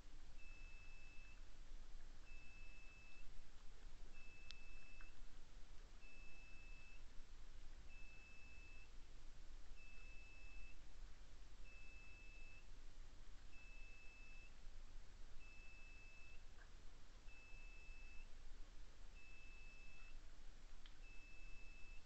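Electronic beeping: a single high, even tone about a second long, repeating steadily roughly every two seconds.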